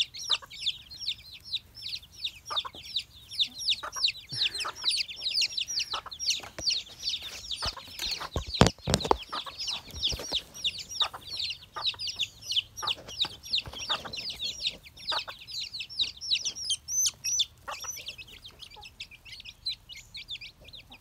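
A brood of chicks peeping without a break, many quick high-pitched cheeps overlapping. A few sharp knocks about eight to nine seconds in are the loudest sound.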